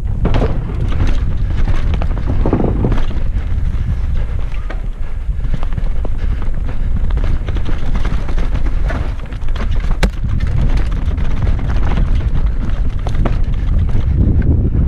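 Mountain bike ridden fast down a rough downhill trail, heard from a camera on the bike or rider: a steady low rumble of wind on the microphone and tyres on dirt, with frequent rattling clicks from the bike and a sharp knock about ten seconds in.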